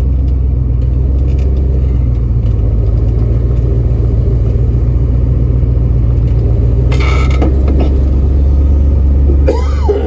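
Old pickup truck's engine running, heard from inside the cab as a steady low drone. About seven seconds in there is a short burst of noise, and the drone then sits lower in pitch.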